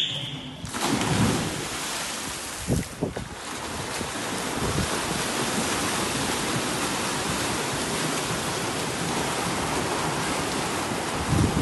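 Several swimmers sprinting front crawl side by side: heavy, continuous splashing of arms and kicks churning the water, starting suddenly under a second in with a few low thuds as they hit the water, then holding steady.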